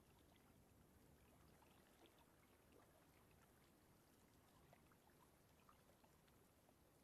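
Near silence: faint still-water ambience, with soft scattered drips and trickles.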